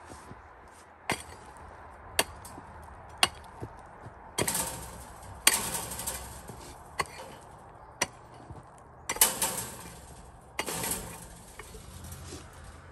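Pick mattock chopping into hard dirt: about ten sharp strikes, roughly one a second, several followed by a short scrape of loosened soil.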